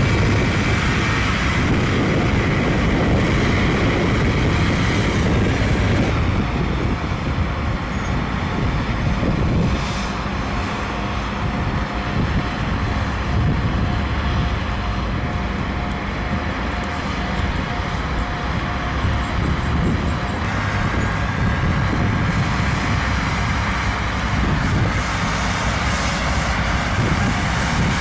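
Heavy airport snow-removal trucks with front rotary sweeper brooms working snow off the pavement: steady, continuous engine rumble and sweeping noise.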